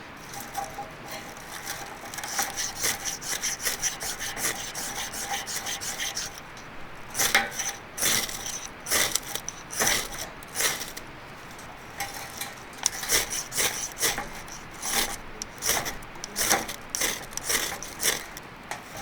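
Repeated scraping strokes, quick and close together for the first few seconds, then slower single strokes spaced about a second apart.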